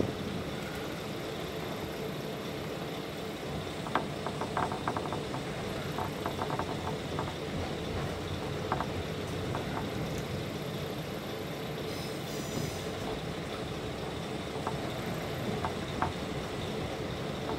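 KiHa 205 diesel railcar running along the track, heard inside the car: a steady engine and running noise, with scattered clicks and short clatters as the wheels pass over rail joints and points.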